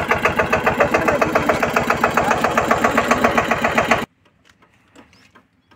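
Single-cylinder diesel engine of a Massey Ferguson 5118 mini tractor running steadily, with a quick, even chugging pulse. The sound cuts off suddenly about four seconds in, leaving a few faint clicks.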